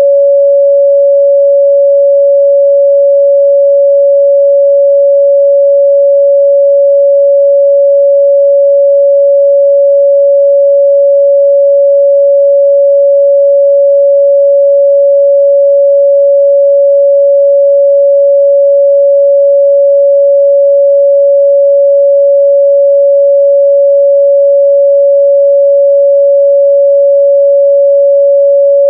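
A pure 562 Hz sine-wave test tone, held steady and loud at one pitch with no other sound.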